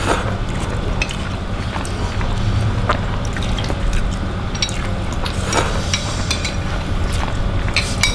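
Eating bakso meatball soup: slurping broth and scattered clicks of metal spoons against ceramic bowls, over a steady bubbling of the broth boiling in a pot on a tabletop stove.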